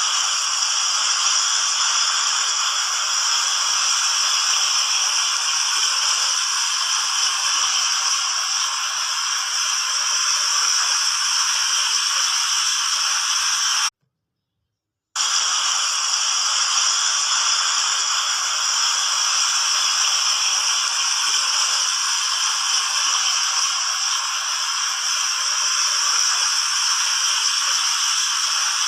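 Water fountain jets splashing, a steady rush of falling water. It breaks off for about a second midway, then resumes.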